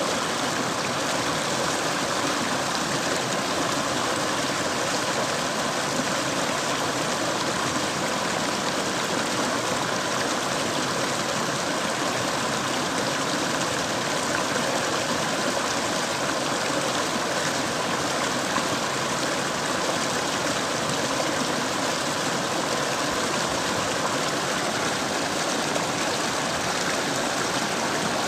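Mountain stream running steadily: an even, unbroken rush of flowing water.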